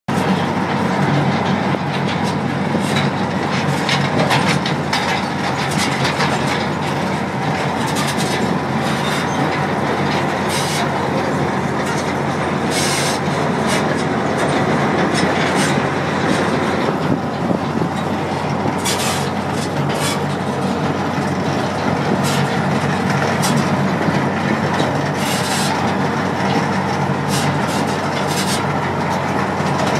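Miniature ride-on train running steadily along its track, heard from one of its cars: a constant engine hum with the rattle and scattered clicks of small wheels on the rails.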